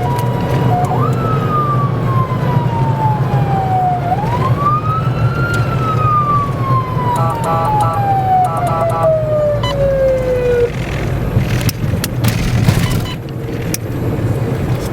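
Siren wailing in slow sweeps, rising quickly and then falling slowly, twice, before it cuts off about two-thirds of the way through. Steady road and engine rumble of a moving vehicle runs underneath.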